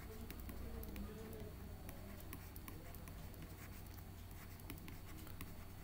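Faint, irregular ticks and light scratching of a stylus writing by hand on a digital pen surface, over a low steady hum.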